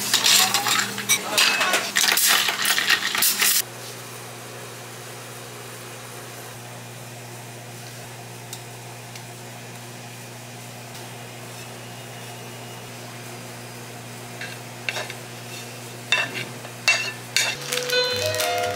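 Glassware and kitchenware clinking and clattering while milk is poured from a carton into glasses, stopping abruptly after about three and a half seconds. A steady low hum follows. Near the end come a few clicks and rustles of packaging being handled.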